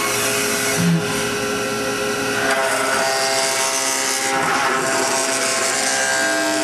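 CNC milling machine spindle running with an end mill cutting into the ribs of an injection-molded plastic part: a steady whine of several tones over cutting noise, the pitch shifting a little as the cut moves along.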